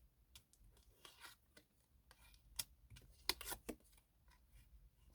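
Faint handling of tarot cards: scattered light taps and short rustles of cards being turned over, the loudest cluster about three and a half seconds in.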